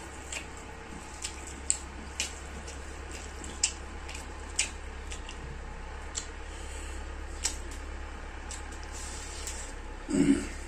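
Wet squishing of bare hands tearing cooked meat off a roasted buffalo head, with scattered sharp clicks and a louder short wet sound near the end.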